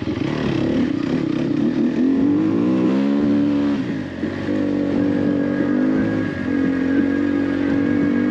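Enduro motorcycle engine running under way; the revs climb about two and a half seconds in, fall away briefly around the three-to-four second mark, then hold a steady pitch.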